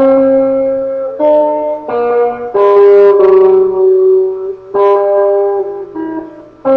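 Instrumental music: a slow melody on a plucked string instrument, each note starting sharply and ringing for about a second over a lower sustained note.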